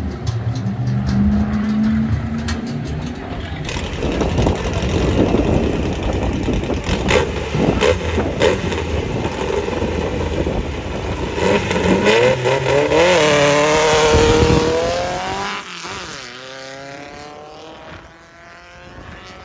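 Drag racing vehicle's engine running hard on a dirt drag strip, rising in pitch as it accelerates about three-quarters of the way through, then fading as it moves away.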